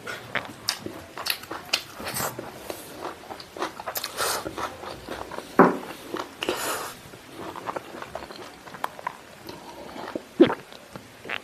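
Wet chewing and mouth smacking of someone eating cooked pork stomach and intestine by hand. It comes as many short, irregular clicks, with a sharper one near the end.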